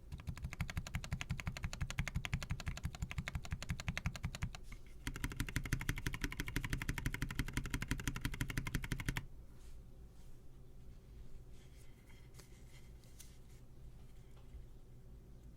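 Fast, continuous typing on a custom mechanical keyboard, a dense stream of keystroke clicks. The typing breaks off briefly about four and a half seconds in, resumes, and stops about nine seconds in, leaving only faint background noise and a few faint clicks.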